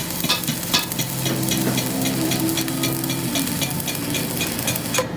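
Electric arc welding on a truck rear axle spindle joint: the arc's steady crackling sizzle over a low steady hum, stopping abruptly just before the end as the arc is broken.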